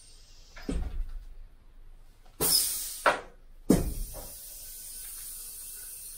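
Low-rise scissor car lift being lowered under a vehicle: a clunk about a second in, a sharp hiss, then a click and a loud clunk as it comes down, followed by a steady faint hiss as it descends.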